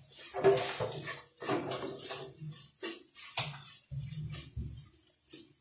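Spatula scraping and knocking against a nonstick frying pan as a soft mash of dried fish and tomato is stirred and pressed, in irregular strokes a few times a second.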